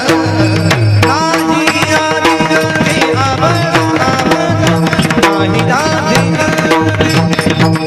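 Instrumental passage of a Marathi devotional bhajan: hand drums and other percussion keep a fast, steady rhythm under a gliding melodic line and a held drone note.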